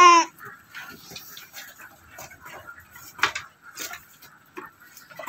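A goat bleats with a wavering pitch, ending just after the start. Then come scattered light clicks and knocks, a sharper one about three seconds in.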